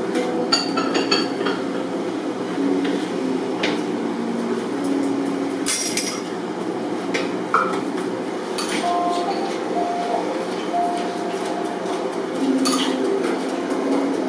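Steady restaurant room noise with scattered clinks and taps of chopsticks and utensils against ceramic bowls and a lacquered container at a sushi counter; the sharpest clink comes about six seconds in.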